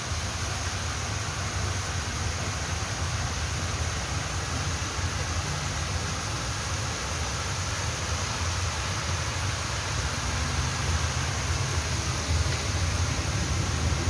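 Dandelion-shaped spray fountains splashing into their basin: a steady hiss of falling water, with a low rumble underneath.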